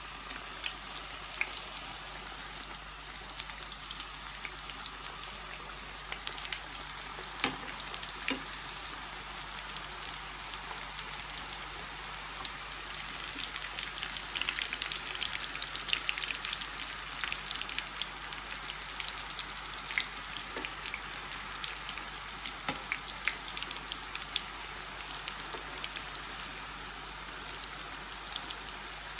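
Folded flour-dough pastries deep-frying in hot oil: a steady sizzle with many small crackles and pops.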